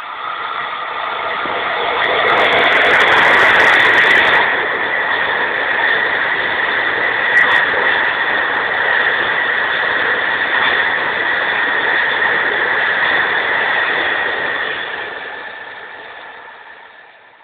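Freight train of LPG tank wagons passing at speed, with a loud rumble of wheels on rails and a steady high squeal running through it. There is one sharp clack about seven seconds in, and the noise fades near the end as the train goes away.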